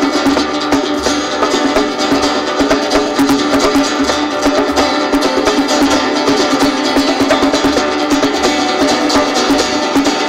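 Two acoustic guitars playing an instrumental piece live, accompanied by hand-drum percussion.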